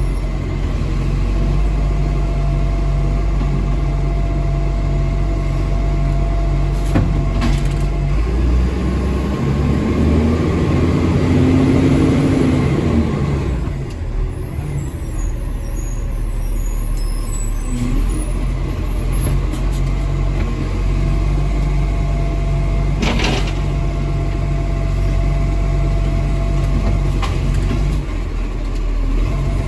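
Garbage truck's diesel engine heard from inside the cab, running steadily with a thin steady whine, then revving up and easing back down over about five seconds as the truck moves off. It then settles back to a steady run, with two short air-brake hisses at about seven and twenty-three seconds in.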